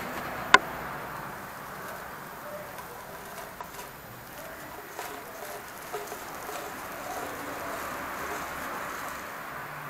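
A single sharp clank about half a second in, as the metal blade knocks against the steel pipe. After it come soft plastic-bag rustling, a steady hiss and faint scattered ticks as white granules are poured from the bag into the pipe.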